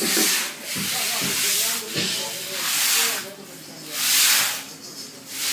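Brooms sweeping rainwater across wet paving: a series of long scraping swishes, about one a second, with voices faintly behind.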